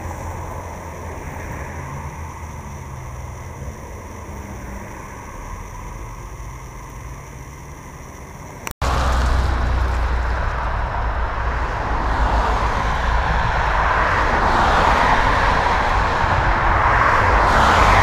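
Road traffic going by: a city bus and cars passing with tyre and engine noise. In the first half, heard through the DJI Osmo's onboard microphone, the noise fades as the vehicles move off. After a brief dropout about nine seconds in, the traffic noise is louder through the DJI FlexiMic and swells as a car passes close near the end.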